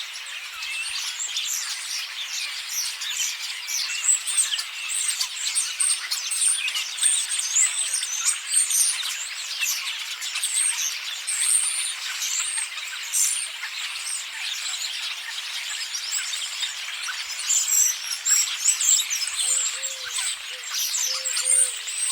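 Starlings chattering: a dense, continuous tangle of overlapping high chirps, whistles and clicks. A low call repeated several times joins near the end.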